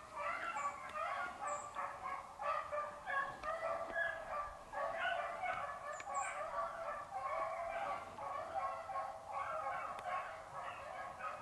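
A pack of beagles baying on a rabbit's trail, many hound voices overlapping without a break.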